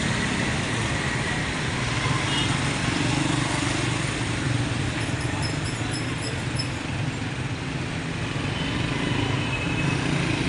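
Busy street traffic: cars and motorcycles running past, a steady mix of engine hum and road noise.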